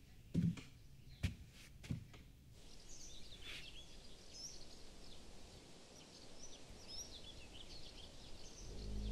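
Three dull knocks in the first two seconds, then birds chirping and singing in short high calls. Low music swells in at the very end.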